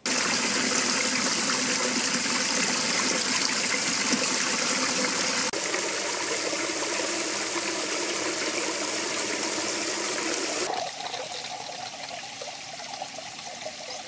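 Water spraying from a PEX pipe with drilled holes into a plastic live well, a steady rushing and splashing as the tank fills and the water is aerated. It gets quieter about eleven seconds in.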